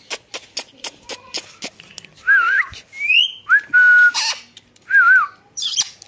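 Indian ringneck parakeet clicking, about four sharp clicks a second, then giving a series of short whistles, some wavering, one rising and one held steady, ending in a brief harsh squawk.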